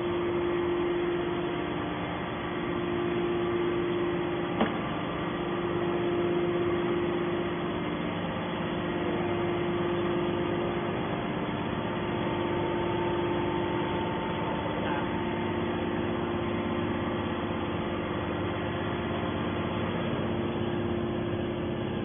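Hydraulic scrap metal baler's pump unit running steadily with an even mechanical hum, with a single sharp click about four and a half seconds in.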